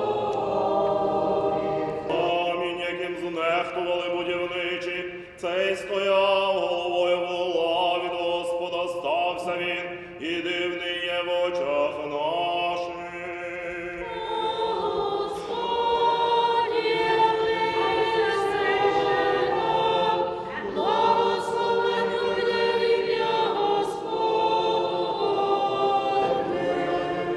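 A choir of voices singing a Byzantine-rite liturgical chant unaccompanied, in sustained chords that move from phrase to phrase with short breaks between phrases.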